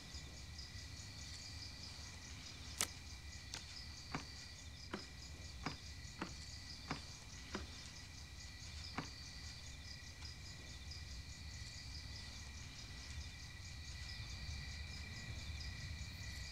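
Crickets chirring steadily, with a faint steady hum beneath. About three seconds in, a quick series of about nine sharp clicks from laptop keys begins, roughly one every two-thirds of a second, and stops about nine seconds in.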